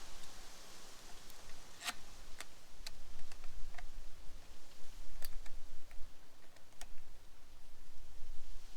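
Scattered light clicks and ticks of small hub parts and screws being handled while a manual locking hub is fitted, about ten irregular clicks with the sharpest near two and five seconds in.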